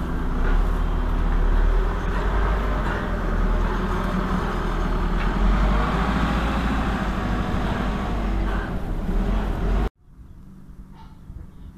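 Merlo 37.10 telehandler's diesel engine running loudly and steadily. About ten seconds in the sound drops suddenly to a much quieter low engine hum.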